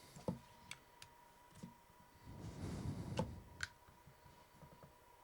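Faint, scattered clicks and taps of a small screwdriver working the tiny Pozidriv screws out of a plastic indicator stalk switch unit, with a softer scuffing of handling around the middle.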